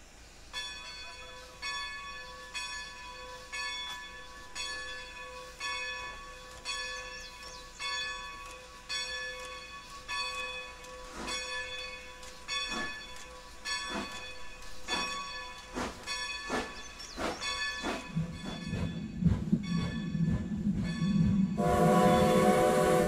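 Grade-crossing signal bell ringing in a steady rhythm of about one strike a second as Strasburg Rail Road #90, a 2-10-0 steam locomotive, approaches with its train. In the last few seconds the train's rumble builds, and near the end the locomotive's steam whistle blows a steady chord.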